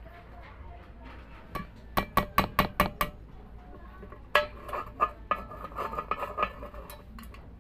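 Claw hammer tapping a nail into the rim of a metal can to punch a hole: a quick run of about six sharp metallic strikes about two seconds in, one more knock a little later, then lighter metallic clinks and rattles as the can is turned by hand.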